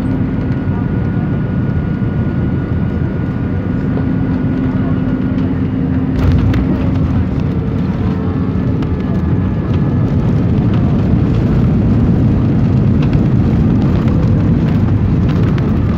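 Airbus A320 airliner heard from inside the cabin as it lands: a steady engine drone with a couple of held tones, then about six seconds in a sudden jolt as the wheels touch down. A rougher rumble of the gear rolling on the runway follows and slowly grows louder.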